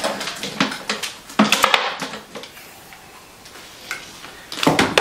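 Hair styling tools and their cords clattering in a wooden vanity drawer as they are rummaged through and lifted out: several bouts of knocks and rattles, near the start, about a second and a half in, and again just before the end.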